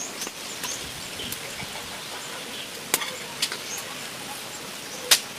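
A few sharp, isolated clicks and taps over a steady hiss, the loudest near the end.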